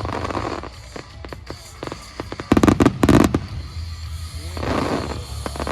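Aerial fireworks bursting: spells of dense crackling, scattered single pops, and a quick cluster of loud bangs about two and a half seconds in.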